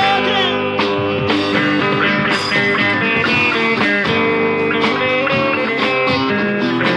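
A live band playing an instrumental break between sung verses, a guitar carrying the melody over steady chords and a beat.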